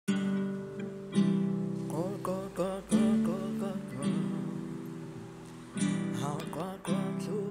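Acoustic guitar playing a song's intro: chords strummed about every one to two seconds, with quick picked runs and slides between them.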